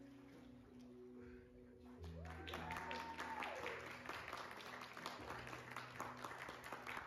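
Audience applauding and cheering, starting about two seconds in, with one rising-and-falling whoop, over soft background music.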